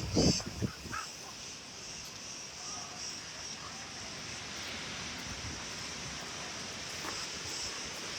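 Quiet outdoor ambience with a steady insect buzz high up and a few faint bird calls. A short, low noise sounds right at the start.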